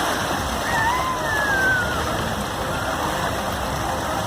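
Steady rushing of falling and splashing water from the pools and water features. About a second in, a brief high call rises and falls over it.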